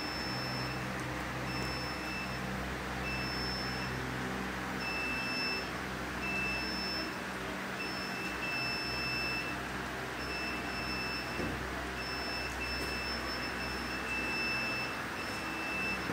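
Electronic alarm on NICU medical equipment beeping a high tone about once a second, over the steady hum and hiss of the machines.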